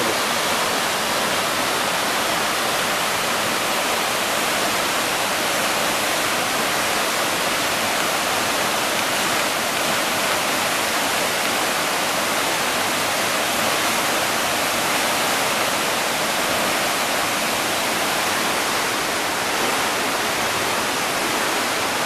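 Large waterfall and the rocky stream below it, water rushing in a steady, even noise with no change in level.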